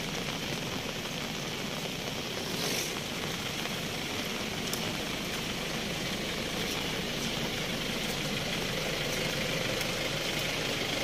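Steady rushing noise of a river in full flood, its swollen brown water pouring past a bridge.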